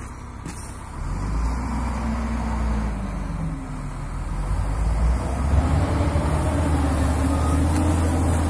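Diesel engine of a front wheel loader working as it pushes snow into a pile; the engine comes in about a second in and grows louder about halfway through, then holds.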